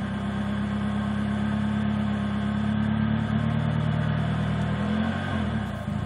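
Mazda MX-3's 1.6 L four-cylinder engine running at low revs under a light touch of throttle. Its speed shifts about three seconds in and settles back near the end. It is the low-rpm idle and sputter problem the owner describes below 1500 rpm, which he suspects is a misfire.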